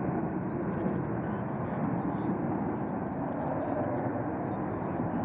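A steady, unbroken roar of jet aircraft noise on an airfield.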